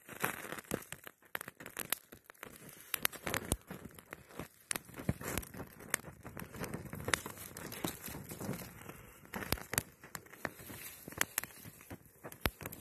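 Small fire of dry leaves, bark and dead twigs crackling as it catches, with many irregular sharp snaps.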